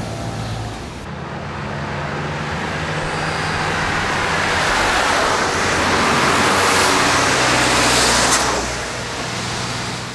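Road traffic: motor vehicle engine and tyre noise, building to its loudest about seven to eight seconds in and then easing off.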